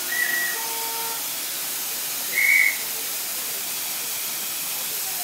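Steady hiss of steam from a miniature live-steam locomotive, with two short toots of its steam whistle about two seconds apart, the second louder.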